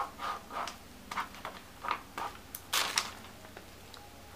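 Short scratches and rustles of a pencil and a pad of paper being handled, in brief separate strokes, with a louder, sharper paper rustle a little under three seconds in.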